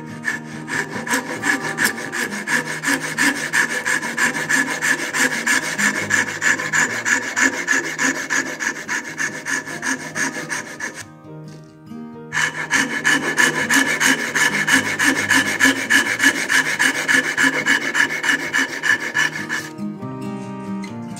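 Fine-toothed hand saw cutting through a block of mulberry wood held in a vise, in quick even strokes about two to three a second. The sawing pauses for about a second near the middle, then resumes and stops shortly before the end. Soft background music plays underneath.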